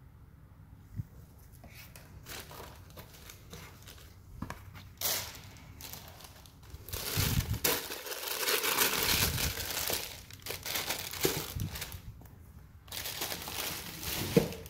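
Tissue paper crinkling and rustling as it is handled and pulled away from a shoe in its box. The rustling comes in uneven bursts, loudest in the middle and again near the end, with one short sharp knock near the end.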